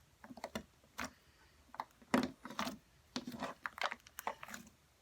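Homemade slime with sand mixed in, squeezed and worked by hand, giving irregular crunchy clicks and crackles.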